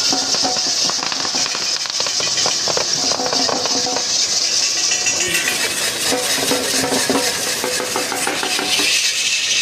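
Continuous metallic clatter and rattle from a bull-driven circular race rig: a yoked pair of bulls pulls the beam and spoked metal wheel around the pit, with a dense run of clinks and knocks.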